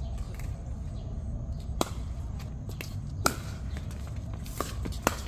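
Pickleball being hit back and forth: two loud sharp paddle strikes about a second and a half apart, then fainter taps near the end, over a low steady rumble.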